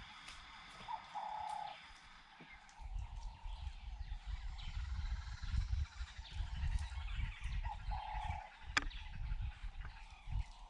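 Wild birds calling outdoors, with a short mid-pitched call heard twice, about a second in and again near the end, over faint high steady insect-like tones. A heavy low rumble runs through the middle, and there is a single sharp click near the end.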